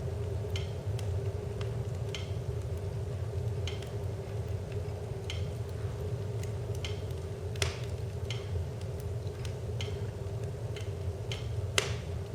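Wood fire burning in a fireplace over a steady low rumble, with two sharp crackling pops, one about halfway through and one near the end. A soft, regular tick repeats about every three-quarters of a second throughout.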